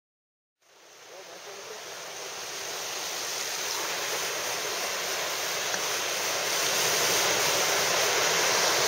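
Ocean surf breaking on a beach: a steady wash of waves that fades in from silence about half a second in and keeps growing louder.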